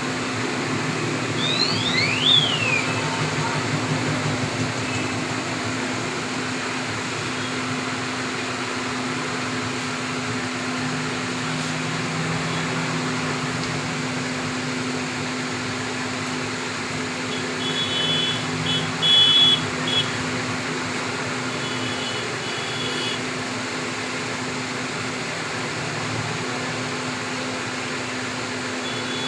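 Steady street background noise with a constant low hum. It is broken by short bursts of high electronic beeping about two-thirds of the way through and again at the very end, and by a brief high gliding whistle near the start.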